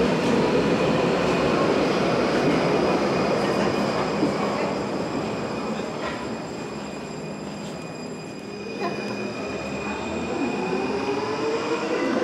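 U-Bahn train braking into the station, its motor whine falling in pitch, then going quieter while it stands. A single knock comes about nine seconds in, and the whine then rises in pitch as the train pulls away, with wheel-on-rail noise throughout.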